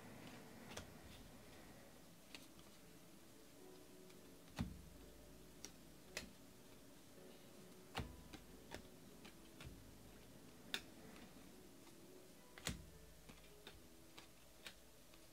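Trading cards being flipped one at a time through a hand-held stack, each card's edge making a short, sharp click or tap. About a dozen of them come at irregular intervals over a faint steady hum.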